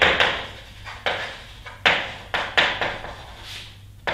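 Chalk writing on a blackboard: a string of sharp taps, each followed by a short scratching stroke that fades.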